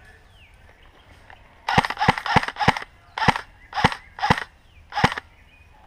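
Airsoft gun fired in single shots: eight sharp cracks, irregularly spaced over about three and a half seconds.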